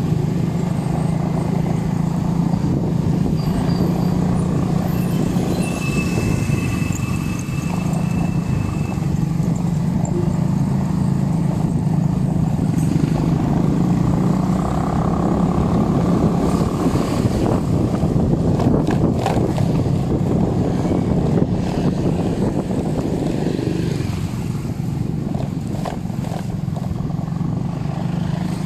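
Motor vehicle engine running steadily on the road, a constant low drone with road noise.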